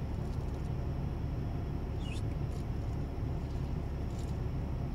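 Steady low rumble of outdoor background noise, with a faint short chirp about two seconds in.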